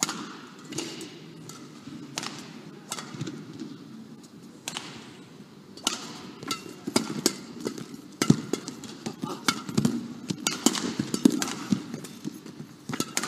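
Badminton rally: rackets striking the shuttlecock in sharp cracks roughly once a second, irregularly spaced, with the players' footsteps on the court between the shots.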